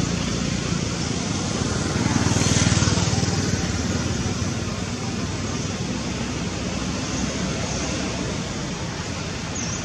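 Steady noise of road traffic, swelling a little about two to three seconds in.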